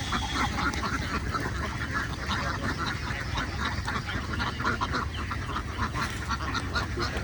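A large flock of domestic ducks quacking continuously, many calls overlapping, over a low steady rumble.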